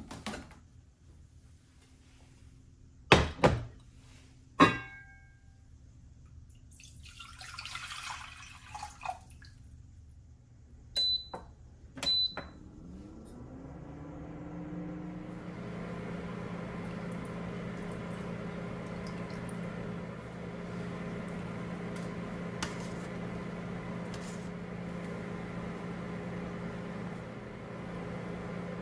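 Heavy cast-iron Staub pots and lids knocking as they are moved, then a short splash of pouring water. Two button presses on an induction hob, each with a short high beep, then the hob starts heating the cast-iron pot: a rising whine that settles into a steady electric hum with its fan running.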